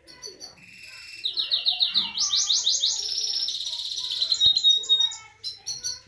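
Himalayan goldfinch and canary singing. The song grows louder about a second in, with a run of fast, repeated high trilled notes, then a buzzy stretch and a brief clear whistled note near the end.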